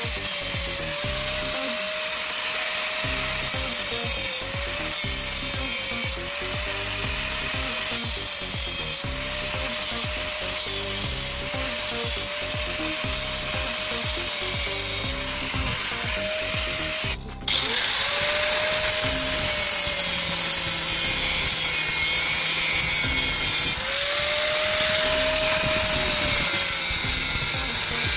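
Handheld power tool grinding down the long nose of a knife blade to lighten it. Its motor tone dips in pitch and recovers again and again as it is pressed into the work, over a steady grinding hiss. The sound breaks off briefly about seventeen seconds in.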